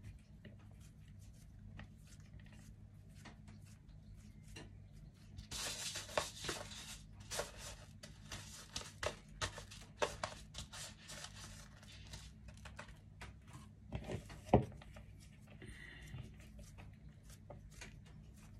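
Hands mixing sticky glutinous rice flour dough in a plastic bowl: rustling with many small sticky clicks and taps from about five to thirteen seconds in, then a sharp knock about fourteen and a half seconds in, over a low steady hum.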